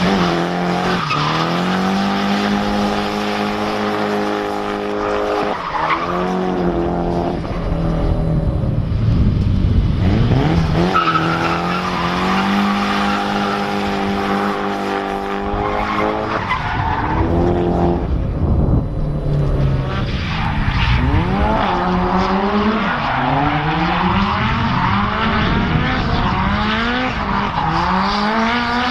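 Drift car engine held high at steady revs for stretches, dropping and climbing again between them, over continuous tyre skidding and squeal. In the last third a second car's engine rises and falls along with it.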